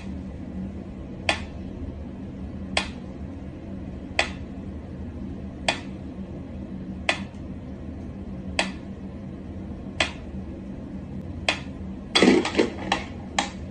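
Pyramid-shaped mechanical metronome ticking at a slow tempo, one sharp click about every second and a half. About twelve seconds in, a quick run of louder knocks and clicks as a cat paws at the metronome.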